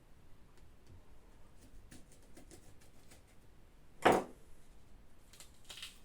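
Faint small clicks and knocks of things being handled on a kitchen counter, with one sharp, louder knock about four seconds in.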